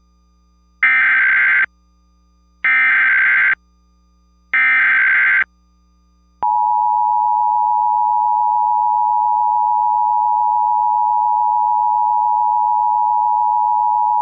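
Emergency Alert System header for a child abduction (AMBER) alert: three short, loud, screechy digital data bursts about a second apart. About six seconds in, the steady two-tone EAS attention signal starts and holds for about eight seconds.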